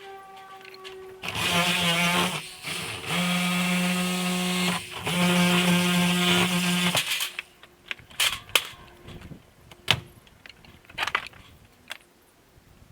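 Electric power tool running in three bursts of a few seconds each, then a few sharp knocks.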